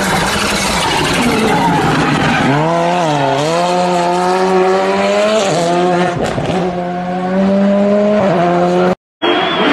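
Volkswagen Polo R5 rally car driven hard on tarmac: tyre and engine noise at first, then the engine note dips and climbs back about three seconds in and holds high with small steps at gearchanges. A few sharp cracks come around six seconds in, and the sound cuts out for a moment near the end.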